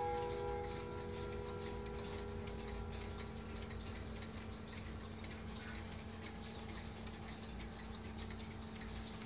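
Several mechanical pendulum clocks ticking at once, their beats overlapping into an uneven patter of ticks. The last ring of a clock chime fades out in the first second.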